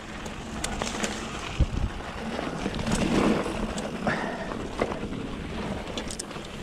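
Mountain bike riding along a dirt trail: steady tyre and wind noise with scattered clicks and rattles from the bike, and a couple of low thumps about a second and a half in.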